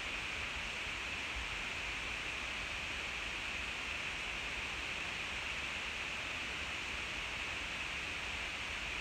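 Steady, even hiss with no distinct clinks, voices or other events, cutting in and out abruptly.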